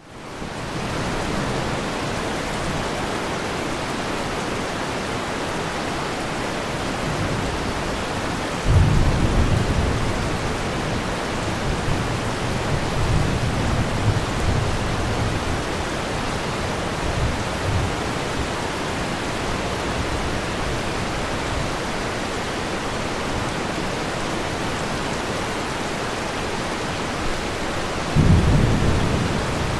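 Thunderstorm: steady rain hiss, with a rumble of thunder that breaks in suddenly about nine seconds in and rolls on for several seconds, and another near the end.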